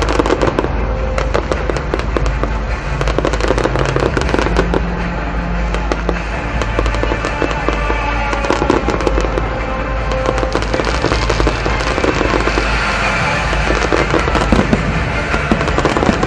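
Aerial fireworks going off in a rapid, irregular string of bangs and crackles throughout, over music playing.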